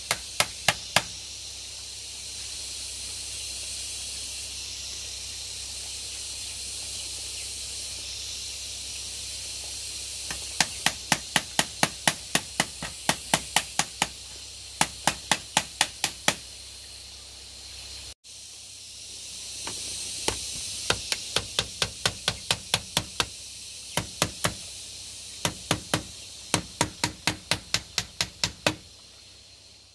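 Rapid, evenly spaced blows of a hand tool on bamboo, about three or four a second, in several runs with pauses between them. A steady high hiss runs underneath.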